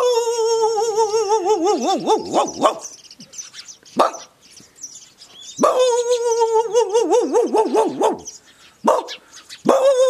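A man imitating a dog: long whining howls with a wobbling pitch, each opening with a sharp yelp and sinking at the end. Two howls of about three seconds each, with a short yelp between them, and a third howl starting near the end.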